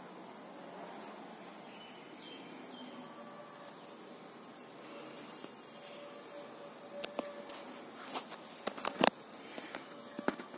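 Steady high-pitched chirring of insects, with a cluster of sharp clicks and taps about seven to nine seconds in and one more near the end.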